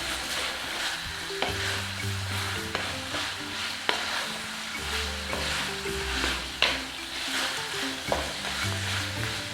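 Chicken sizzling as it fries in a pan, stirred with a utensil that knocks against the pan about five times. Background music with held bass notes plays underneath.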